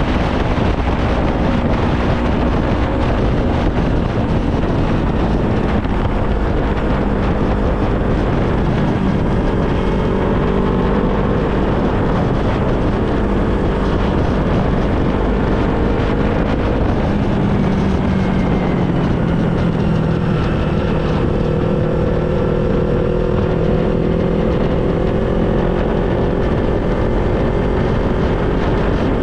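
Yamaha R25 sport bike's parallel-twin engine running while riding, its pitch slowly falling and rising with the throttle. Heavy wind noise on the microphone runs under it.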